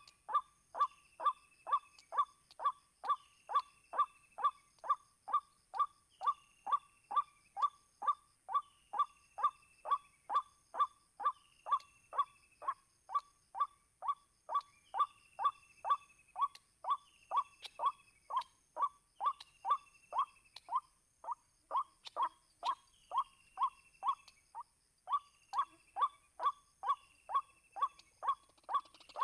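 White-breasted waterhen calling in a steady, monotonous run of short notes, about two a second, with higher downslurred notes mixed in between.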